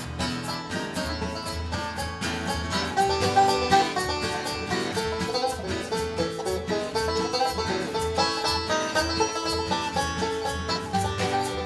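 Instrumental break of a folk-blues song played by an amateur acoustic band: quick plucked-string picking over a steady beat between sung verses.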